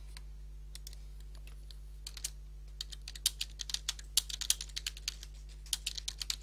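Typing on a computer keyboard: a few scattered keystrokes, then a quick run of key presses from about two seconds in, over a steady low hum.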